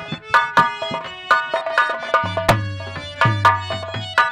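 Nautanki drum duet: a nagara kettle drum beaten with sticks and a dholak played by hand, in a fast interlocking rhythm. Sharp ringing strikes mix with deep booming bass strokes that slide down in pitch.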